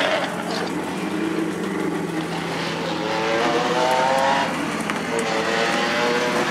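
Renault 5 Maxi Turbo rally car's turbocharged four-cylinder engine pulling away at low speed, the revs climbing, dropping back about four and a half seconds in, then climbing again.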